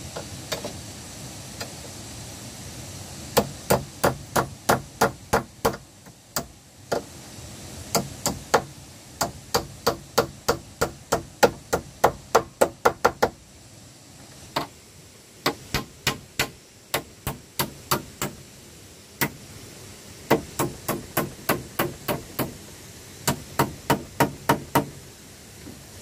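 Claw hammer nailing the wooden boards of a chicken house: runs of sharp, quick blows, about three to four a second, broken by short pauses and a few single strikes.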